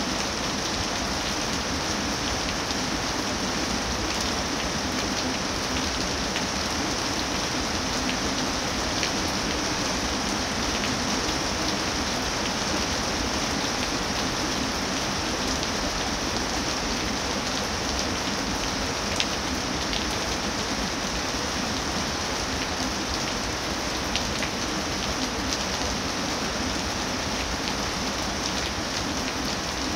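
Steady rain falling, a constant even hiss, with a few louder single drips of rainwater standing out now and then.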